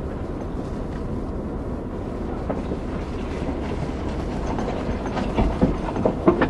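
Vehicle moving slowly with a steady low rumble, and irregular clicks and knocks in the last couple of seconds.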